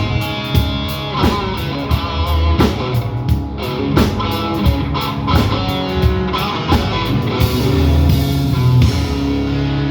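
Live rock band playing an instrumental outro: guitars over a steady drum beat. About seven seconds in, the drum strikes stop and a cymbal wash and a held chord ring on.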